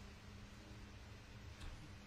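Near silence: a low, steady electrical hum of room tone, with one faint click about one and a half seconds in.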